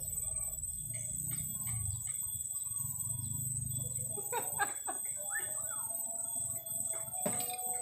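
Small birds chirping, with short scattered calls that cluster about halfway through, over a low rumble and a steady thin high tone.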